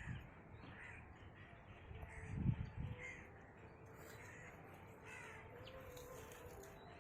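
Crows cawing repeatedly in the background, with a low thump or rumble about two and a half seconds in.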